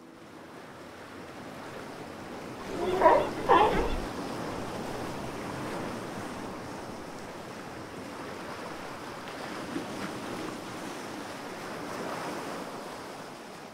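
Ocean waves washing on a shore, a steady surf, with two short loud sounds half a second apart about three seconds in.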